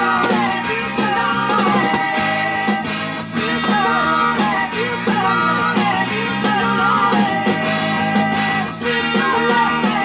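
A recorded song with singing over a full band, played from a vinyl record on a DJ's turntables.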